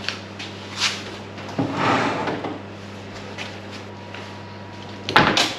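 Scattered knocks and clunks of things being handled, with a louder cluster of clatters near the end, over a steady low hum.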